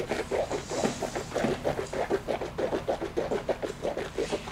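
Coconut-oil and baking-soda paste being swished around the mouth (oil pulling): a rhythmic wet squishing, about five swishes a second.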